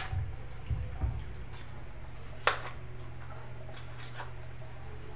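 Kitchen knife slicing tomato on a plastic cutting board: a handful of scattered taps of the blade on the board, the loudest about two and a half seconds in, over a steady low hum.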